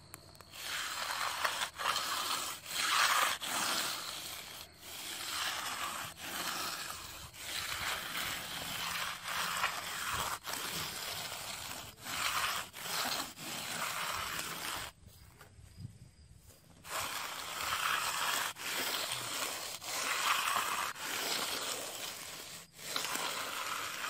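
Hand-held steel concrete edger scraping back and forth along the edge of freshly placed concrete against the wooden form, in repeated gritty strokes about every two seconds, with a short pause about fifteen seconds in. This is the edging pass that rounds the slab edge and leaves the finished tool edge mark.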